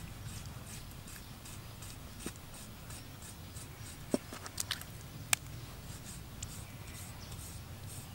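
A cleaver blade scoring raw squid on a wooden cutting board: light scraping strokes about two or three a second, with a few sharper knocks of the blade against the board a little past halfway.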